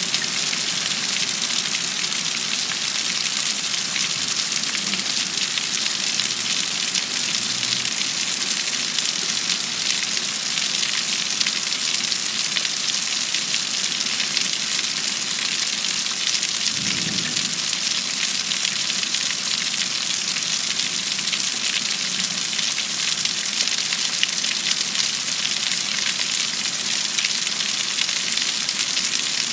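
Heavy rain falling steadily during a thunderstorm, an even hiss.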